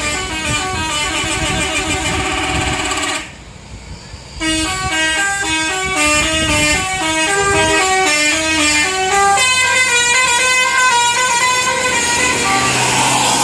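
A tour bus's Basuri telolet horn playing a tune of quick stepped notes. It breaks off for about a second after three seconds, then carries on with another run of notes.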